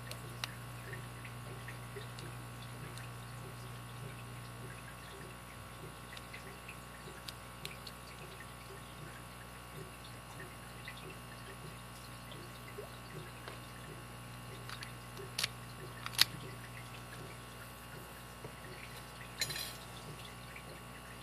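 Lock pick and tension wrench working the pins of a vintage late-1970s Master gun lock: scattered faint ticks and scrapes, two sharper clicks about fifteen and sixteen seconds in, and a brief rattle of clicks near the end, over a steady low hum.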